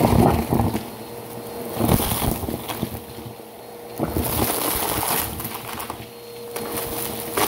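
Bissell Power Force Helix upright vacuum cleaner running as its nozzle is worked into a pile of bottle caps, balloons, sequins, confetti and small plastic bits. The debris crunches and rattles over a steady motor hum, in three surges with quieter stretches between.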